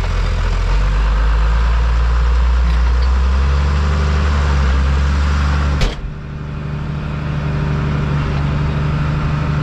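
Old farm tractor's engine running steadily while pulling a plough. About six seconds in there is a sharp click, after which the engine note is higher.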